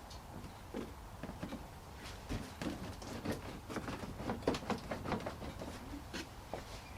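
Irregular light clicks and knocks, busiest in the middle: hands and tools working at a car's plastic bumper cover and its fixings.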